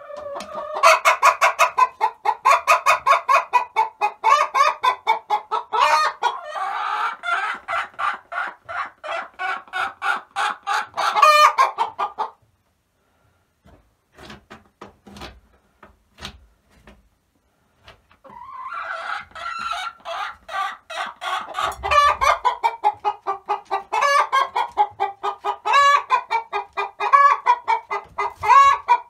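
A hen cackling: rapid repeated clucks, about four a second, with a few louder, higher squawks mixed in. The calling stops for several seconds in the middle, leaving only faint ticks, then starts again.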